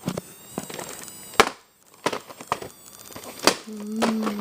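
Plastic VHS tape case being handled and opened: a series of sharp clicks and knocks, the loudest about a second and a half in, with a brief low tone near the end.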